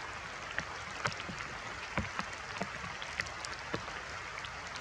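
Steady rain, with irregular drops tapping sharply on nearby surfaces.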